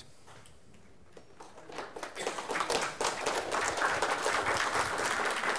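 Audience applause: quiet at first, then many hands clapping, starting about two seconds in and building to a steady level.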